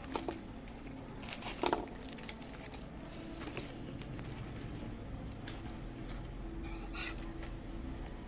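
Eating sounds during a seblak mukbang: a few scattered light clicks and taps of utensils, with soft mouth sounds, over a low steady background.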